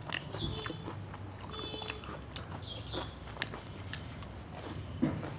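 Mouth sounds of someone eating fried cheese corn nuggets: chewing, with many short wet clicks and smacks, over a low steady hum.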